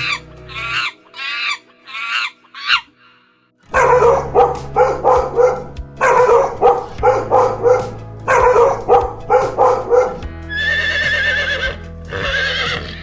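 A dog barking in quick runs of four or five barks, over background music. Before the barking there are a few shorter calls and a brief pause, and a different wavering call follows near the end.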